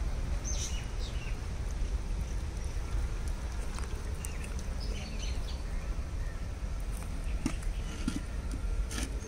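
Outdoor ambience: a steady low rumble with faint bird chirps here and there, and a few faint clicks.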